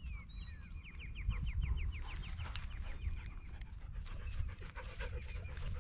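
A dog panting close by, while a bird sings a quick run of short falling notes in the first two seconds, over a low rumble.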